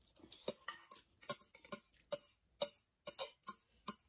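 Close-miked eating sounds: an irregular run of short, sharp wet clicks and smacks of chewing, about three a second.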